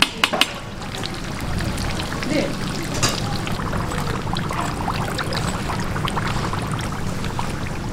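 Battered fritters deep-frying in a wide pan of oil, with a steady sizzle. Metal tongs click sharply against the pan's wire rack a few times near the start and once more about three seconds in.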